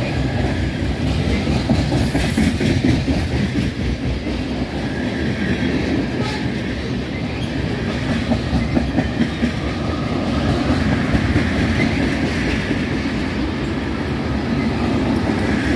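Freight train of tank cars and covered hoppers rolling past close by: steel wheels clattering over the rail joints over a steady, heavy rumble.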